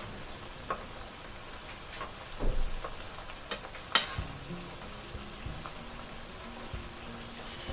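Beef and sauce simmering with a steady sizzle in a nonstick frying pan, with light clinks of a metal spoon scooping up sauce to taste; one sharper clink of the spoon against the pan about four seconds in.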